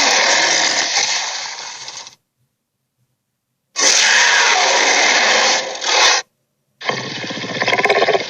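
Dragon sound effects: three harsh, raspy growls, each cut off abruptly, with short silences between them. The third is a fast rattling growl that starts about seven seconds in.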